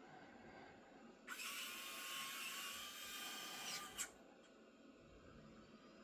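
Roborock Saros Z70 robot vacuum's small electric motor whirring for nearly three seconds, then stopping with a click.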